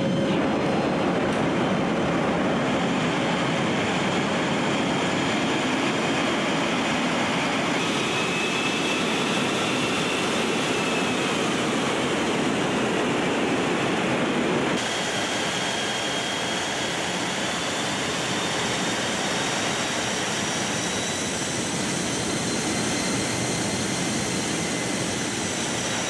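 Steady engine and rushing-air noise inside the cargo cabin of a military transport aircraft in flight, with a faint high whine over it. About fifteen seconds in, the noise shifts and becomes slightly quieter.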